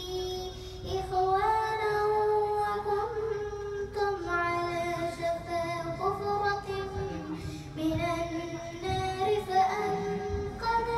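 An eight-year-old girl's voice reciting the Quran in Arabic in a melodic, chanted style. She holds long, high notes with ornamented turns, in phrases that start about one, four and eight seconds in.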